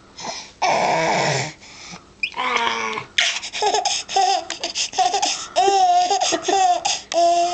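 Baby laughing in a quick run of short, high-pitched laughs, several a second, starting about three seconds in. Before that comes a loud breathy rush of noise about a second in.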